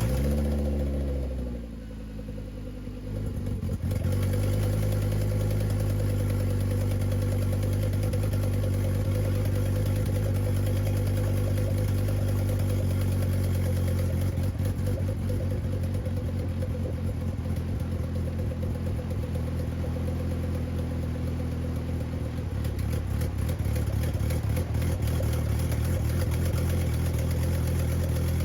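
Turbocharged 2.5-litre five-cylinder engine catching on its first start. The revs flare and fall away over the first couple of seconds and sag briefly, then it settles into a steady idle about four seconds in. On this first start it is not running right.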